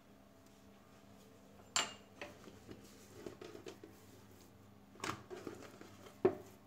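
Hands lifting, stretching and patting down a thin oiled sheet of paratha dough on a wooden board: soft sticky slaps and rustles in two spells, with a sharp knock about two seconds in and a click near the end.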